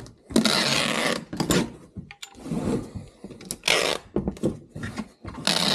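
Clear packing tape pulled off a handheld tape-gun dispenser onto a cardboard box: several loud, rasping rips as the tape unrolls, the longest near the start, with clicks and knocks of the dispenser against the box between them.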